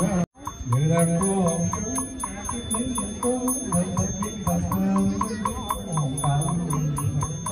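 Vietnamese Buddhist chanting: a voice chanting a slow, stepwise melody over a steady tapped beat about four times a second. The sound cuts out for a moment just after the start.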